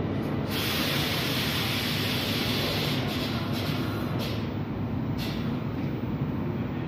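Train rumbling steadily, with a hiss starting about half a second in and lasting about four seconds, then a second short hiss about a second later.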